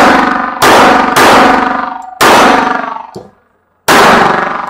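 Four shots from a 1911 .45 ACP pistol in a quick, unevenly spaced string, each with a long ringing tail, and a small click between the third and fourth.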